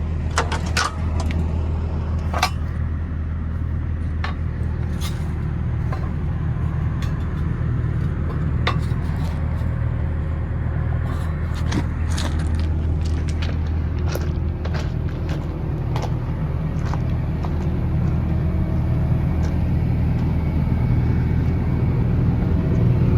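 Case CX240B excavator's diesel engine left running at a steady idle, with scattered clicks and knocks as someone climbs out of the cab and moves about the machine.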